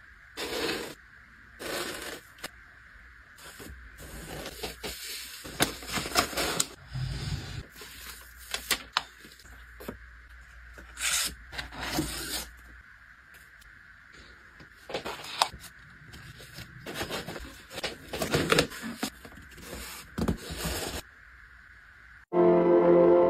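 Hands handling packing materials in short bursts of rustling, tapping and scraping: paper, a plastic spray bottle and printed cards being picked up and set down. Music starts suddenly near the end.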